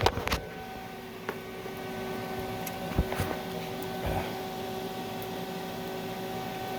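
Welding arc crackling that breaks off just after the start, leaving the welding machine's steady hum with a few faint ticks.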